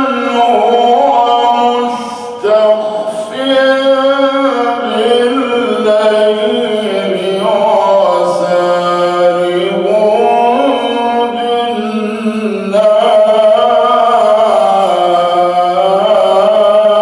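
A man's voice reciting the Quran in the slow, melodic mujawwad style: long held notes that glide and turn in pitch, sustained almost without a break, with brief pauses about two seconds in and about twelve seconds in.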